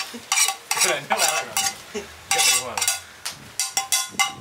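A spoon scraping and clinking against a metal wok as food is stirred and mixed, in a quick irregular run of scrapes, some with a short metallic ring.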